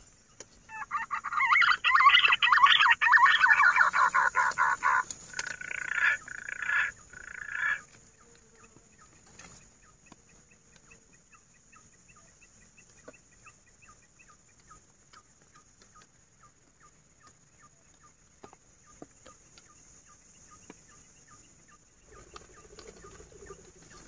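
Green pigeons (punai) calling: a loud, rapid chattering run of calls lasting about four seconds, then two shorter bursts. After that, only a faint, even series of ticks at about two a second.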